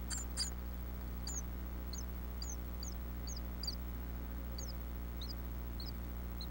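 Nestlings in a nest box giving high, thin begging peeps, a few a second at first and thinning out toward the end, over a steady low hum.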